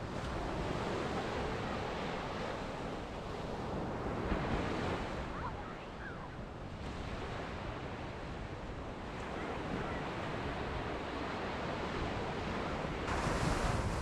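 Small ocean waves breaking and washing up a sandy beach, the surf swelling and easing every few seconds, loudest near the end. Wind buffets the microphone underneath.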